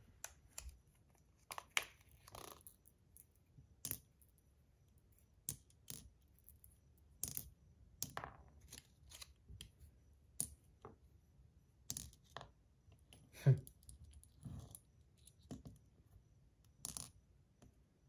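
Scattered light metallic clicks and clinks, about a dozen spread out, as small loose balls are handled and set into a PillBug fidget toy's body.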